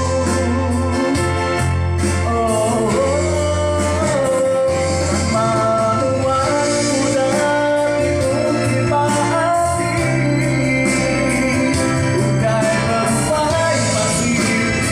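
Live band music with electronic keyboard and steady bass notes, and a wavering melody that sounds like a singing voice.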